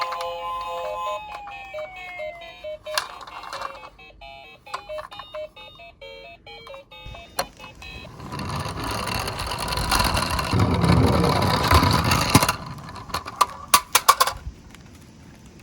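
Electronic sound effects from toy police cars: beeping tones and falling siren-like glides. About halfway through a louder rolling rush sets in, and near the end it breaks into a run of sharp plastic clicks and clatters.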